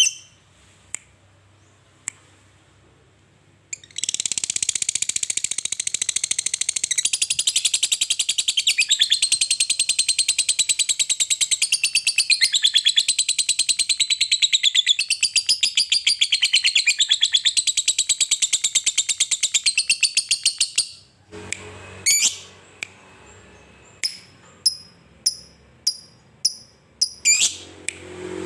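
Lovebird 'ngekek': after a few sharp chirps, a long, very fast, high-pitched chattering trill with a wavering pitch starts about four seconds in and runs for some seventeen seconds. It then breaks off into separate sharp chirps, about two a second.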